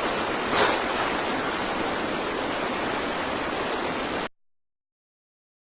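Steady hiss of a recording's background noise, with a faint brief rush about half a second in. It cuts off abruptly to dead silence about four seconds in.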